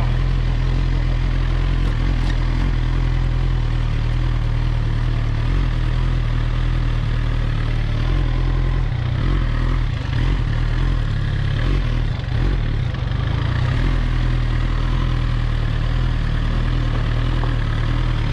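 Suzuki GSX-R 1000's inline-four engine running steadily at low revs while the bike rolls slowly, its low hum wavering briefly around the middle.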